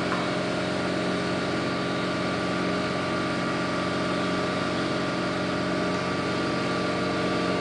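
A motor running with a steady, unchanging hum.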